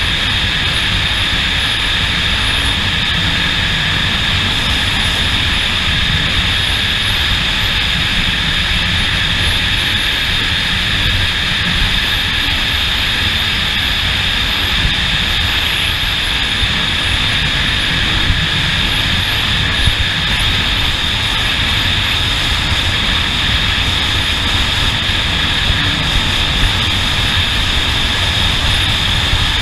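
Steady, unchanging motor drone with heavy low rumble and a constant high whine.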